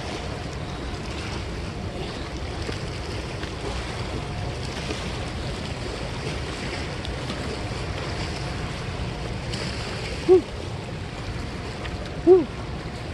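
Steady wind on the microphone, with river water lapping at a rocky shore. Two brief, loud pitched sounds rise and fall about ten and twelve seconds in.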